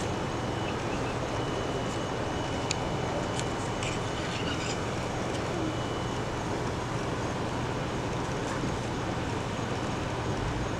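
Lego Power Functions electric motor running steadily under power from its battery pack, with a faint high whine for a few seconds and a few light clicks about three seconds in.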